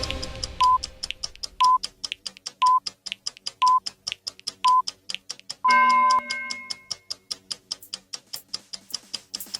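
Countdown timer sound effect: a clock ticking quickly and evenly, with a short beep once a second. About 6 seconds in comes one longer, fuller beep, and the ticking carries on after it. The tail of the background music fades out in the first second or two.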